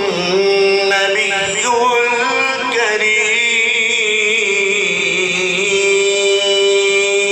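A man's unaccompanied devotional recitation, sung through a microphone in ornamented melodic phrases. About three seconds in it settles into a long held note.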